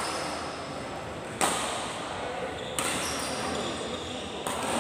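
Badminton rally: rackets smacking the shuttlecock three times, about a second and a half apart, the loudest hit about a second and a half in. Each hit rings on in a large echoing hall.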